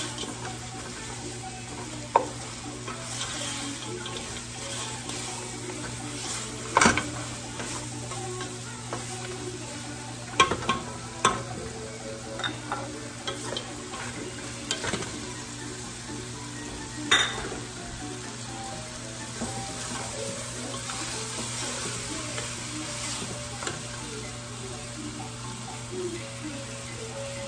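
Pork hocks sizzling in a pot while a wooden spoon stirs them, with a few sharp knocks of the spoon against the pot.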